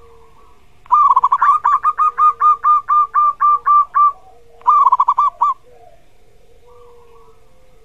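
Zebra dove (perkutut) singing: a quick rolling opening that runs into a long string of about a dozen evenly spaced 'kuk' notes, then a second short rolling phrase about a second later.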